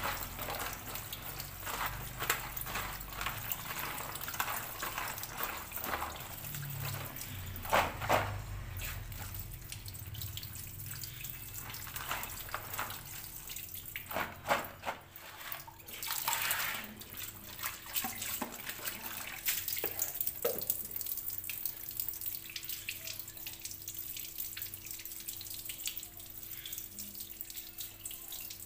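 Tap water running and splashing into a plastic colander as cut green chilies are rinsed and turned over by hand. A few louder knocks come through along the way.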